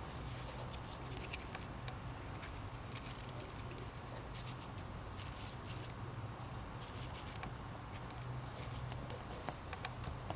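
Light, scattered clicks and small scrapes from handling the tiny parts of a compact digital camera during repair, over a steady low hum.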